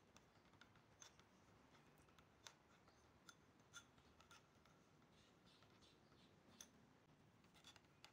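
Near silence, with a few faint, irregular clinks of a metal spoon against a glass bowl as it stirs a yogurt marinade.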